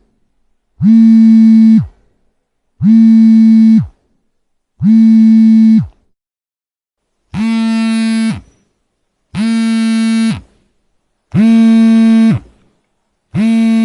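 Mobile phone vibrating in repeated buzzes, each about a second long, roughly every two seconds. Each buzz has a steady low hum that dips in pitch as the motor spins down, and the last few are a little quieter and more rattly.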